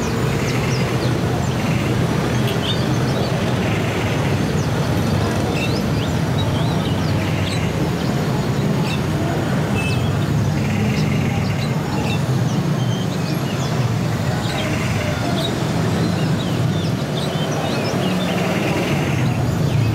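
Many caged songbirds chirping and twittering in short, overlapping calls, with repeated buzzy trills, over a steady rumble of traffic.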